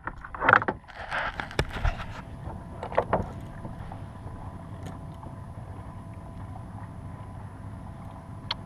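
Kayak on open water: a few sharp knocks and a brief splash in the first three seconds, then a steady low wash of water and wind.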